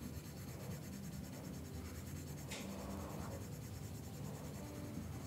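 Faint tapping and scratching of an Apple Pencil stylus on an iPad's glass screen, with one sharper tap about halfway through, over a low steady hum.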